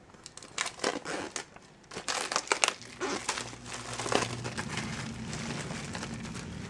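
Clear plastic shrink wrap being peeled off a metal case and crinkled in the hands: a dense run of quick crackles over the first four seconds or so, thinning out after that.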